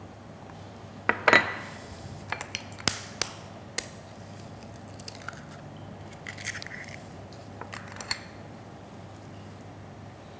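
Scattered clinks and knocks of ceramic bowls, eggs and utensils being handled on a kitchen counter, the loudest a sharp double knock about a second in, with a brief rustle a little past the middle.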